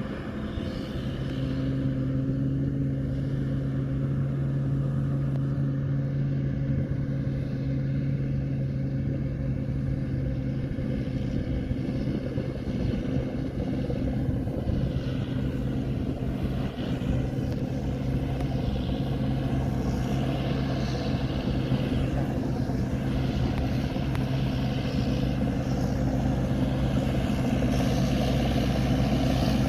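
Rice combine harvester's engine running steadily with a low, even hum, growing louder about a second in and then holding.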